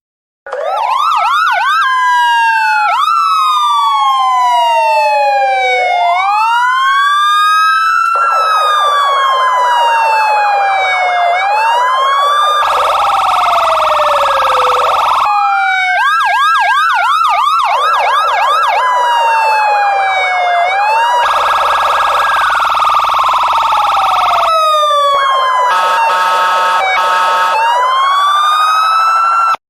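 Electronic emergency-vehicle siren cycling through its tones, starting abruptly about half a second in. It gives long wails rising and falling, a fast yelp, and stretches of a harsh buzzing horn tone, switching pattern every few seconds.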